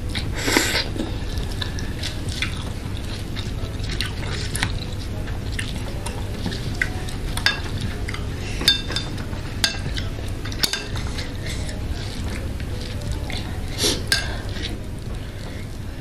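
Close-up eating sounds of boiled instant noodles in broth: a wet slurp of noodles about half a second in and another near the end, with sharp clicks of a spoon and fork against the bowl in between, over a steady low hum.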